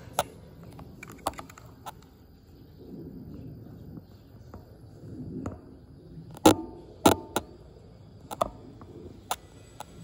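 Scattered sharp clicks and knocks at irregular intervals, the two loudest a little more than six and seven seconds in with a short ring after them, over a faint low rumble.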